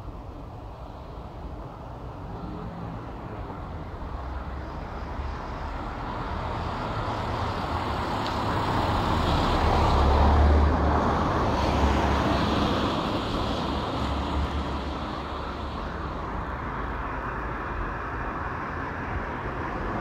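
A passing vehicle: a rushing, rumbling noise that builds slowly to a peak about halfway through, then fades back down.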